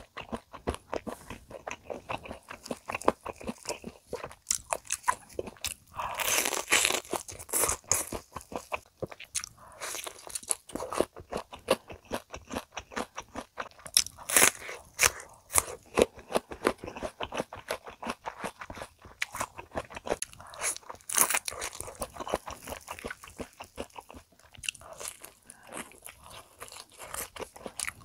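A person biting into and chewing crispy fried chicken, the crisp coating crackling in dense crunches. The crunches come in clusters, loudest about six seconds in, again around fourteen to sixteen seconds, and around twenty-one seconds.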